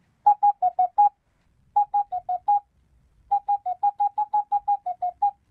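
Short electronic beeps in three quick runs (five, five, then about a dozen), stepping between two close pitches, like a video game's text-blip sound effect.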